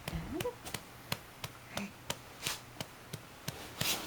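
A steady run of sharp light taps, about three a second, with a short rising squeak from a small voice near the start and a breathy puff near the end.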